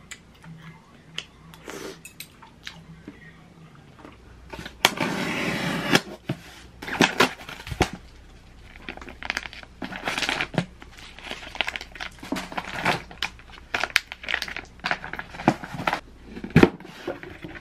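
Unboxing a delivery: a styrofoam cooler box and a cardboard parcel handled and opened on the floor, with many quick rustles, scrapes and clicks of packaging. A rough rasping burst about five seconds in and two dull thumps of a box set down.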